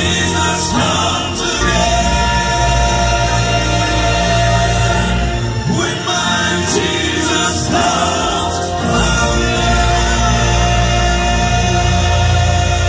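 A group of men singing a southern gospel song together in harmony into microphones, over a sustained instrumental backing.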